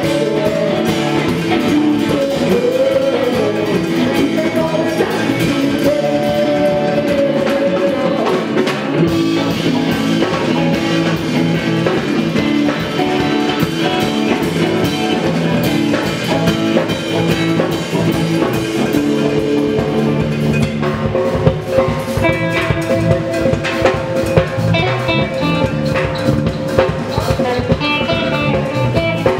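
Live indie rock band playing loudly: electric guitars and a drum kit, with a tambourine and a saxophone in the line-up, and a held melodic line running over the band.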